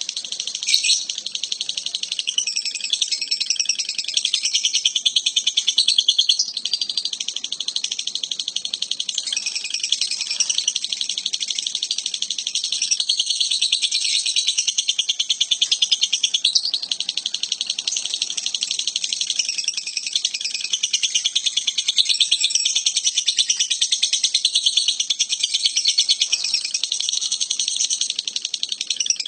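Lovebird singing a long, unbroken high-pitched chattering trill made of very rapid pulses, which keeps going for the whole half-minute.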